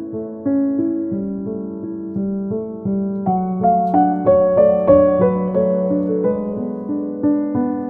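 Background piano music: a gentle melody of struck notes and chords, a new note about every half second.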